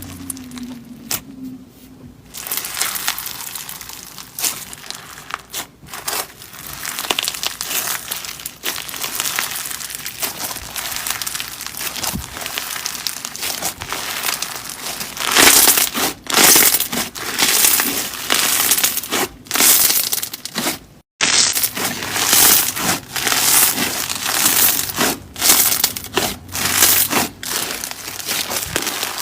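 Slime being squeezed and pressed by hand: an unbroken run of crackling, crinkling squishes, with louder presses coming at uneven intervals, and a brief break about two-thirds of the way through.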